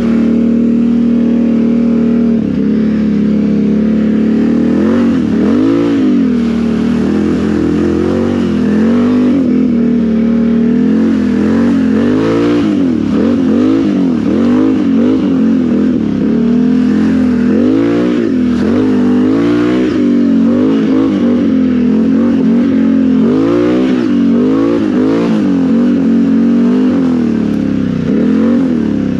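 2017 Can-Am Renegade XMR 1000's V-twin engine through aftermarket RJWC dual exhausts, ridden hard with the throttle worked on and off. Its pitch holds steady for the first few seconds, then climbs and drops again and again as the rider revs it up and backs off.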